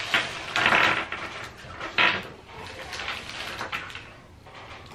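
Clear plastic bag of individually wrapped chocolates crinkling and rustling as it is opened and emptied. The loudest rustles come about half a second in and in a sharp burst about two seconds in, then fainter rustling.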